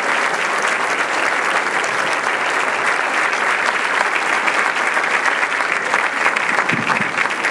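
A large audience applauding, many hands clapping steadily.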